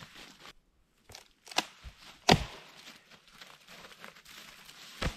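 Three sharp knocks or snaps, the loudest a little over two seconds in, with faint rustling between them.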